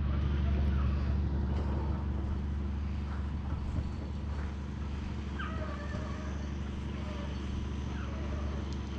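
A motor vehicle's engine running steadily with a low, even hum. A faint higher-pitched wavering sound comes in briefly around the middle.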